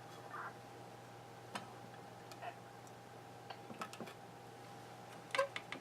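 Scattered light clicks and taps of small parts and wires being handled on an electronics workbench, a few close together near the end, over a faint steady hum.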